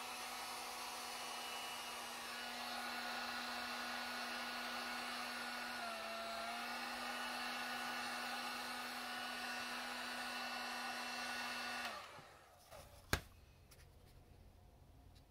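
Dual-setting heat gun running on its high setting: a steady blower whir with a low hum, the pitch dipping briefly about six seconds in. About twelve seconds in it is switched off and winds down, followed about a second later by a single sharp knock.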